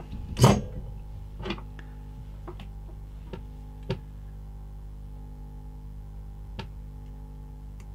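A handful of sharp clicks and taps from handling a small circuit board and metal tweezers. The loudest comes about half a second in, with fainter ones scattered after it, all over a steady low electrical hum.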